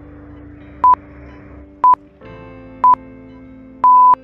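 Quiz countdown timer beeping once a second, single high-pitched electronic beeps with a longer final beep near the end as the count reaches zero, over quieter background music.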